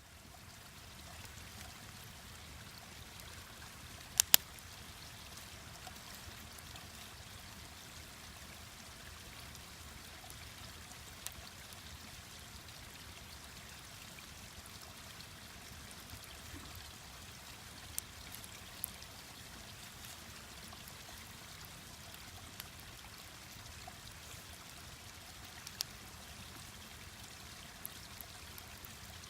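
Mountain stream running steadily, with sharp pops and cracks from a wood campfire now and then; the loudest is a quick double pop about four seconds in.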